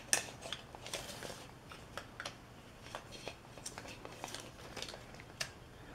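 Faint scattered clicks and light rustling of hand tools being handled, with a few sharper ticks spread through.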